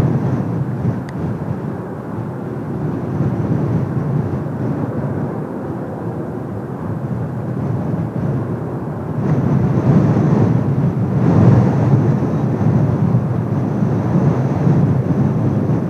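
Distant jet noise from Blue Impulse Kawasaki T-4 jets, a steady rumble mixed with gusting wind on the microphone, swelling louder about nine seconds in.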